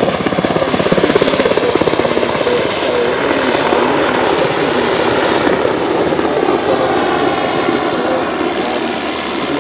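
MH-60R Seahawk helicopter in flight, its rotor beating in a fast, steady chop that is slightly louder in the first couple of seconds.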